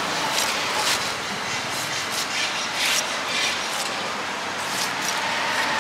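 Large steel knife cutting into a peeled pineapple in a run of short, crisp strokes, about two a second, as the eyes are carved out in grooves. Steady street traffic noise underneath.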